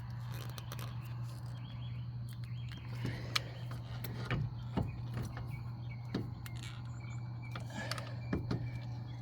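Scattered clicks and light metallic knocks of hand tools and brake parts being handled at a car's front brake caliper, over a steady low hum.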